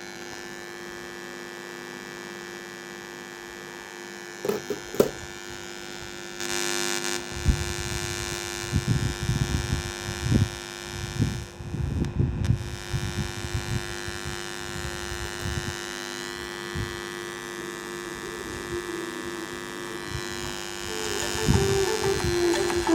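Steady electrical mains hum from a powered-on 2.1 home theater speaker system. There are two sharp clicks about five seconds in, then irregular low thuds, and music starts to come through near the end.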